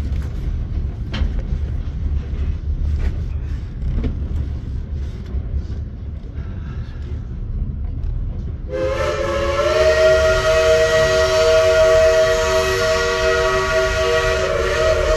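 Train rolling slowly with a steady low rumble and scattered clicks and clanks. About two thirds of the way in, the locomotive's chime whistle sounds one long, loud multi-note chord that bends up slightly as it opens and holds to the end.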